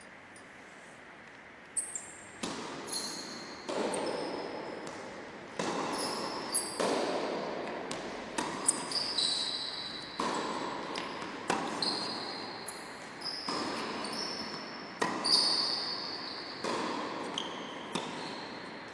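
Tennis rally: a racket striking the ball and the ball bouncing on the hard court floor in turn, about once a second, starting about two seconds in, with short high squeaks between the hits. Each hit echoes in a large indoor sports hall.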